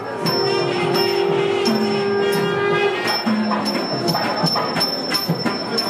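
Live temple procession music. A wind instrument holds one long note for about three seconds, then plays shorter lower notes, over sharp drum strokes and a steady ringing of bells.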